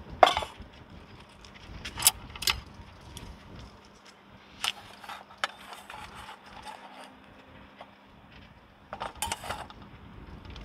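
Metal clinks and clatter of camp cookware: a sharp ringing clank just after the start, two clinks around two seconds, single taps near five seconds and a short rattling run near the end, as chopsticks shift a pizza on a wire rack inside a frying pan. A faint steady hum runs underneath.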